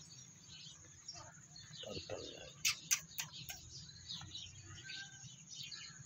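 Small birds chirping over and over with short high notes, and a few louder sharp notes around the middle. Faint voices are heard about two seconds in.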